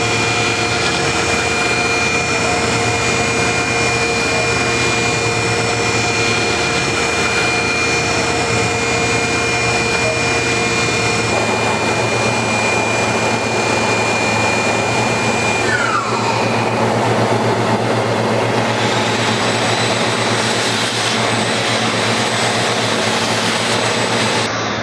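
Tormach CNC mill spindle whining steadily while a ball nose end mill makes the finishing pass on G10 fiberglass laminate, over the steady rush of a dust collector. The tones shift about halfway through, and a whine falls in pitch a few seconds later.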